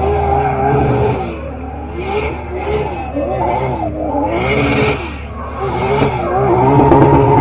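Nissan 200SX drift car's engine revving up and down through a drift, with repeated bursts of tyre squeal; loudest near the end.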